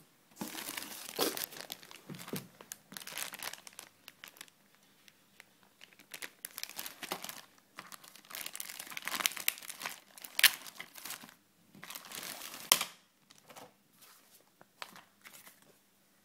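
Plastic packaging crinkling and rustling in irregular bursts as wrapped parts are pulled from a box and handled, with a few sharp crackles and a short pause about a third of the way through.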